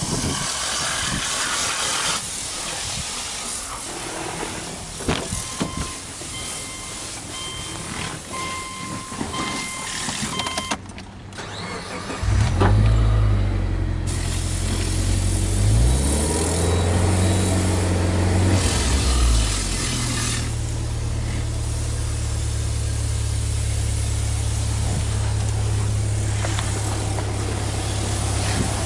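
Subaru Legacy Touring Wagon tuned by STI, with its turbocharged EJ20 flat-four boxer engine, started from cold about 12 seconds in. Before the start a dashboard warning chime beeps repeatedly. After the start the engine speed rises and falls a few times, then settles into a steady idle.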